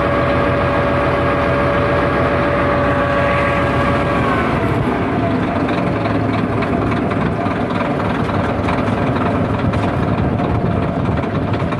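Freshly overhauled bulldozer running steadily, with a high whine over the engine that drops away a little over four seconds in. After that comes a busier metallic clatter with sharp clicks.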